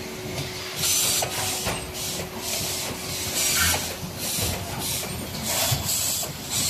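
Assembly-line workshop noise: a string of short hisses and light clatter, over a faint steady hum that fades out about four seconds in.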